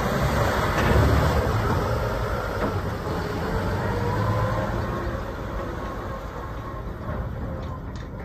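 Volvo A40G articulated dump truck's diesel engine running as the truck drives past over dirt. It is loudest about a second in, then fades steadily as the truck pulls away, with a faint steady whine alongside.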